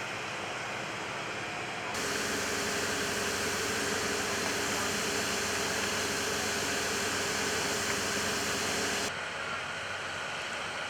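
Steady hissing rush of air over a low machinery hum. A louder, brighter hiss comes in abruptly about two seconds in and stops abruptly about nine seconds in.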